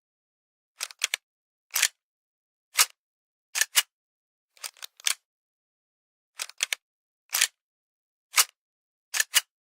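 Pistol being cocked over and over: short, sharp mechanical clicks, some single and some in quick runs of two or three, with silence between each cocking.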